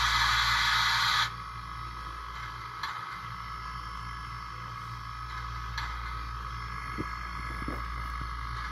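Sound decoder in a model Shay steam locomotive playing a loud steam hiss that cuts off about a second in, then a quieter steady idle with a faint whine and low hum and a few soft clicks.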